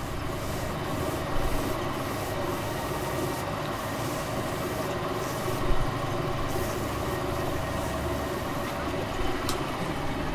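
Machinery running steadily: an even rumble and hiss with several steady tones, with two brief louder knocks and a sharp tick near the end.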